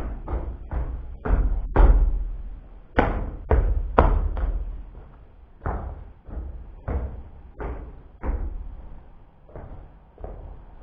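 A series of knocks and thuds, about two a second at first, then more spaced and fainter toward the end.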